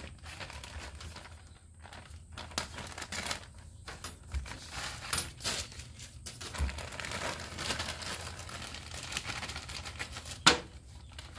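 Plastic packaging bag crinkling and rustling as it is handled and opened to get at the RC crawler axles, with one sharp snap near the end.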